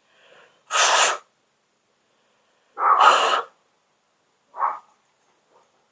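Hard puffs of breath blown through a clogged passage in a frost-free yard hydrant part to clear it: two strong half-second blasts, then a shorter, weaker one near the end.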